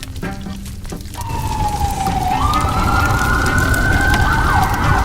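Siren wailing: one tone that slides down, then jumps up and climbs slowly, over a steady low rumble. A few notes of music are heard in the first second.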